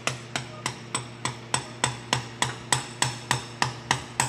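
Hammer tapping a brass punch in quick, even, gentle blows, about three to four a second, each with a short metallic ring, driving the crankshaft oil seal into the first reduction gear case.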